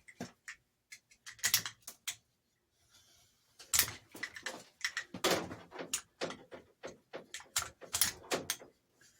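Hand stripping of insulated wire: a blade cutting and peeling the plastic insulation along a wire held in a vise, heard as a run of short, irregular scrapes and clicks with a brief lull about a third of the way in.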